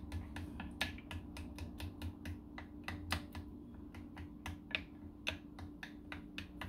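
Spoon clinking against a bowl in quick, irregular light taps, a few a second, as a cream-and-mustard dressing is stirred, over a faint steady hum.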